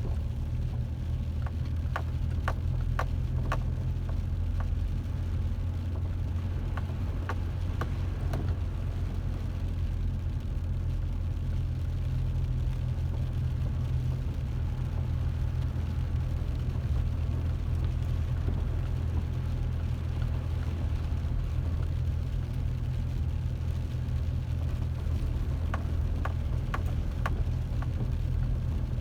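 Car driving steadily, heard from inside the cabin: an even, low rumble of engine and tyres, with a few faint clicks a couple of seconds in and again near the end.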